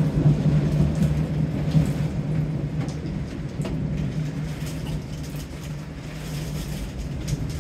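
Rolling thunder: a long low rumble that slowly fades away.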